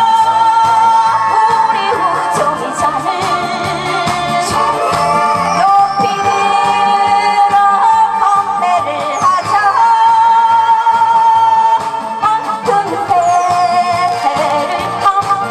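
A singer singing live into a microphone over a recorded backing track with a steady beat, holding long notes.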